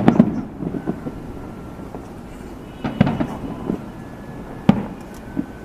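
Fireworks shells bursting overhead: a cluster of bangs with a rolling echo at the start, another burst about three seconds in, and a single sharp bang near the end.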